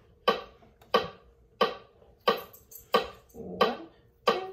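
Metronome ticking at 90 beats per minute: seven sharp, evenly spaced clicks, one about every two-thirds of a second, each with a brief pitched ring.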